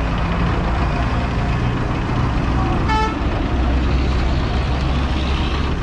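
Busy road traffic: a steady low rumble of passing vehicle engines, with one short horn toot about three seconds in.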